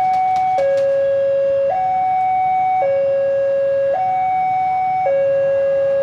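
Electronic level-crossing warning alarm sounding a steady hi-lo two-tone pattern. A higher and a lower tone alternate, each held about a second, warning of an approaching train.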